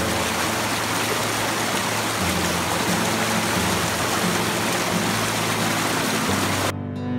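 Creek water rushing and splashing over rocks in a steady hiss that cuts off suddenly about seven seconds in. Faint sustained low music tones lie beneath it.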